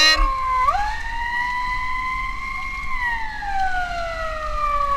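Emergency vehicle siren wailing. Its pitch rises quickly about half a second in, holds high for about two seconds, then slides slowly down.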